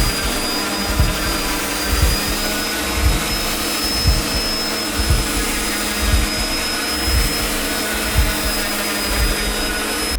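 A power tool's high-speed electric motor running steadily, with a rush of air and a thin high whine. A low thump comes about once a second.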